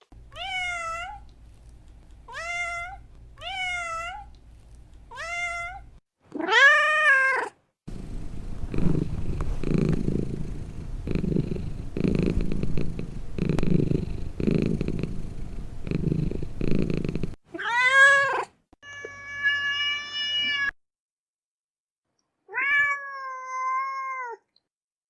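Cats meowing in a string of separate clips. First come four short, high meows and a louder one. Then about ten seconds of low, pulsing purring, then three more meows, the last two drawn out.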